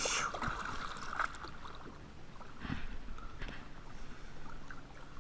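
Water lapping and splashing around a kayak, with a few short splashes or knocks.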